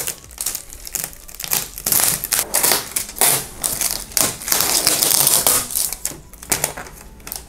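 Blue painter's tape being peeled off clear plastic wrap: a crackly, tearing run of rapid clicks, with the plastic film crinkling. It thins out near the end.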